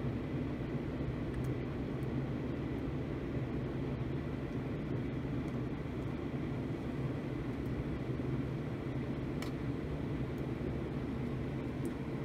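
Steady airflow noise and low hum of a homemade laminar flow hood's blower fan, with a faint high steady tone over it.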